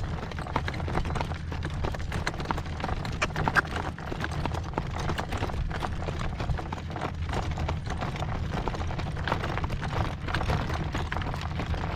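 A driven horse's hooves clip-clopping in a steady footfall rhythm on pasture ground, with a steady low wind rumble on the microphone.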